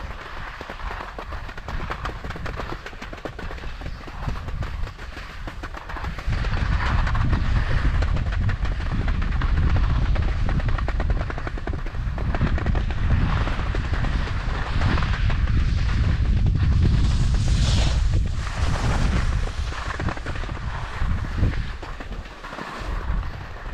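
Skis scraping and hissing over soft spring snow while being towed uphill on a T-bar, with a crackly texture throughout. A heavier low rumble comes in about six seconds in and eases off near the end.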